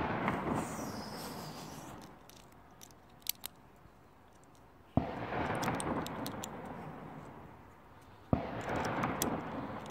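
Two gunshots, about five and eight seconds in, each followed by a long rolling echo off the surrounding hills. The echo of a shot fired just before is dying away at the start, and a few faint clicks come in between.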